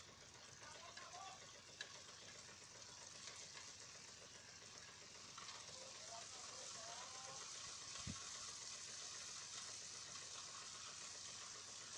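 Faint steady hiss and rattle of crushed stone sliding off a raised dump truck bed onto a pile, growing slightly louder, with a single low bump about eight seconds in.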